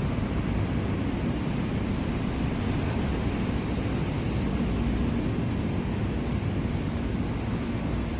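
Steady low rumbling background noise with a faint steady hum through it.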